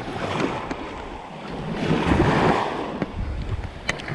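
Small surf washing onto the beach, with wind on the microphone; the wash grows louder about two seconds in.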